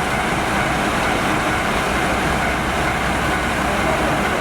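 Steady, even vehicle noise: a constant rumble and hiss with no separate events.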